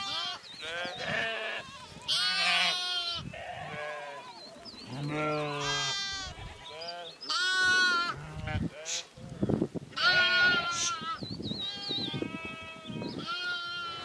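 A large flock of sheep bleating, many wavering calls overlapping one after another.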